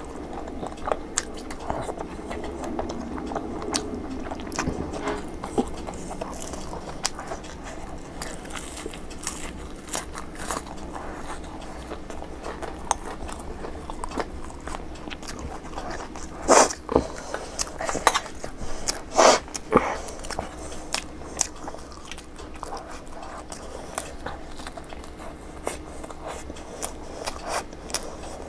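Close-up eating sounds: steady chewing and small wet mouth clicks, then a few louder crunching bites about 16 and 19 seconds in as a batter-fried sandwich pakora is bitten and chewed.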